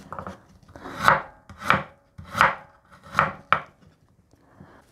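Kitchen knife slicing fresh ginger into thin strips on a wooden cutting board: about five separate cuts, roughly one every 0.7 seconds, each ending in a knock of the blade on the board, stopping about a second before the end.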